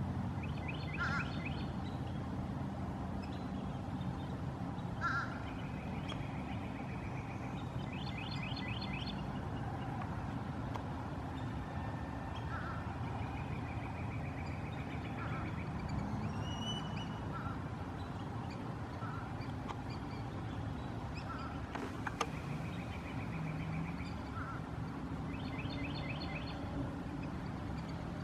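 Black-bellied whistling-ducks calling in bursts of rapid, high multi-note whistles, with single whistled notes in between, over a steady low rumble.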